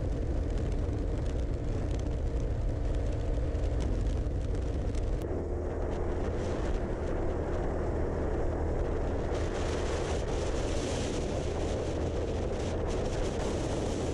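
Motorcycle riding at highway speed: a steady engine note under constant wind rush on the onboard microphone. The upper part of the noise shifts about five seconds in.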